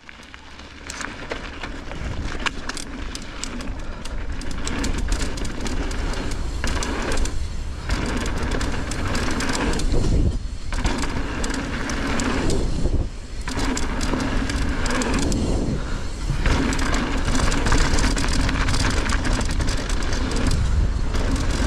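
Mountain bike riding down a dry dirt trail: tyres rolling over dirt and rocks, with the chain and frame rattling in many small clicks and knocks, and wind rushing over the microphone. The noise dips briefly a few times.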